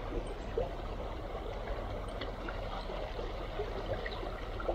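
Small river flowing over shallows: a steady, even wash of running water, with a few faint ticks.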